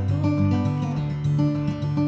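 Background music: a plucked acoustic guitar with finger slides on the strings.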